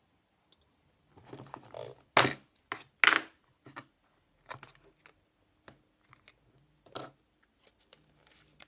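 Toy packaging being handled and opened: scattered clicks, taps and rustles, with two louder tearing or crinkling sounds about two and three seconds in.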